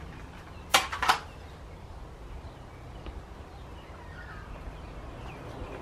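A match struck on the side of a matchbox: two quick scrapes about a third of a second apart, about a second in. They are made in lighting the newspaper and kindling of a tandoor fire.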